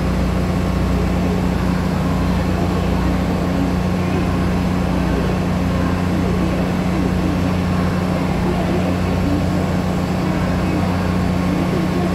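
Taiwan Railways DR3100 diesel multiple unit standing with its underfloor diesel engines idling: a steady low drone.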